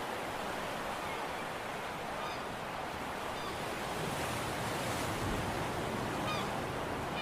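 Steady wash of sea waves and wind across the microphone, with a low gust of wind rumble about four to five seconds in. A bird gives short calls a few times, at about two, three and six seconds in.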